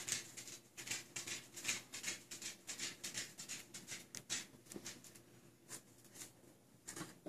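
Boat-tailed grackle pecking and picking at a rug as it feeds: quick, soft taps and scratches, several a second, thinning out after about four seconds.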